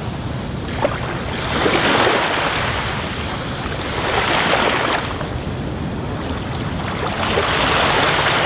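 Aquarium water churning and bubbling at the surface from the filter outflow: a steady rushing, splashing hiss that swells louder and fades back three times, with one small click about a second in.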